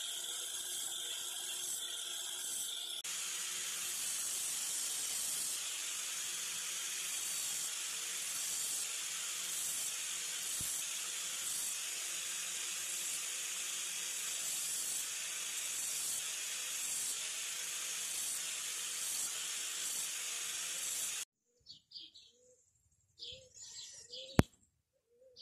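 Angle grinder with an abrasive disc grinding rust off the steel head of an old adze: a steady whine that turns into a steady grinding hiss about three seconds in, ending abruptly near the end.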